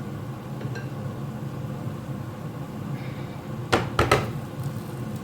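Steady low kitchen hum with about three sharp clacks close together about four seconds in, a utensil knocking against the frying pan as the broken potato omelette is put back into it.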